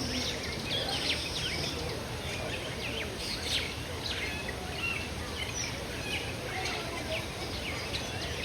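Many caged birds chirping: lots of short, high calls overlapping throughout, over a steady low background noise.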